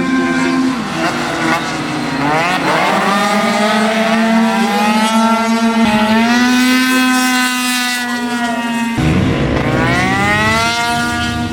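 Tuned two-stroke scooter engine revving hard: its pitch climbs and holds high for several seconds. About nine seconds in the sound changes abruptly, and the engine climbs in pitch again.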